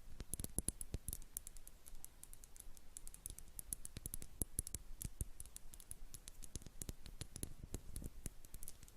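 Tapping on a jar: quick, irregular light clicks, several a second.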